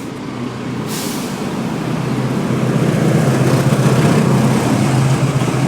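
A motor vehicle's engine running close by, a low rumble that grows louder over the first three seconds and then holds steady. A short hiss comes about a second in.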